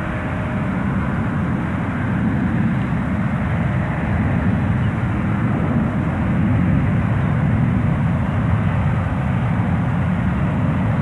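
Twin jet engines of a Boeing 777-200 at takeoff power during its takeoff roll: a steady, deep rumble that grows a little louder after the first couple of seconds.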